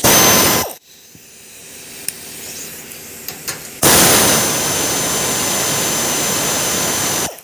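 Pneumatic air ratchet with a 14 mm socket running on a bolt: a short burst at the start, then a longer run of about three and a half seconds, a loud steady hiss of exhaust air with a high whine, that cuts off suddenly. The ratchet is driving the bolt back tight.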